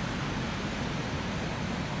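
Steady, even rushing noise with no distinct events or changes.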